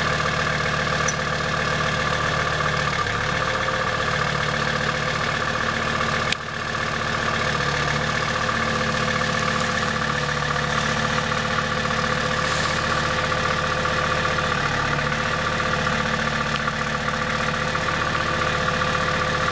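Kubota M4900 tractor's four-cylinder diesel engine running steadily, with a single sharp click about six seconds in.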